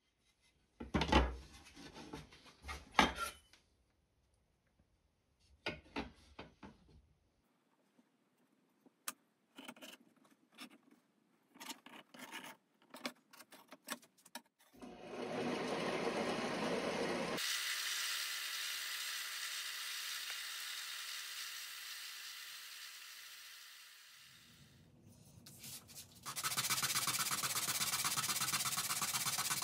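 Scattered knocks and light taps at first. From about halfway, a steady noise slowly fades over several seconds. Near the end, a wooden knife-handle scale is rubbed by hand on a sanding disc with a loud, even rasping.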